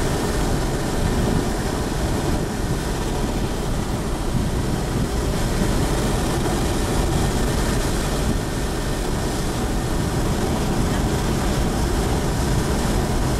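Steady rumble of a vehicle driving along a gravel road: tyre and wind noise that runs on evenly without breaks.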